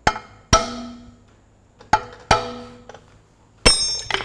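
Hammer tapping a steel bush-fitting tool in a tractor's kingpin housing to straighten it: four ringing metal taps in two pairs, then a sharp metallic clatter near the end.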